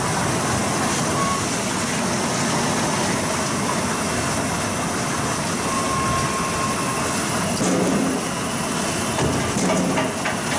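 Potato processing machinery running: a steady mechanical whir and hiss from the belt conveyor's geared motor and the line around it, with a few knocks near the end.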